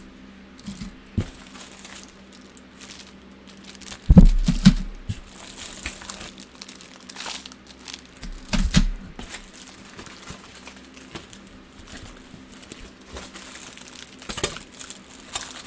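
Plastic packaging crinkling and rustling as toy parts are unpacked from their box, with two heavier thuds about four and nine seconds in.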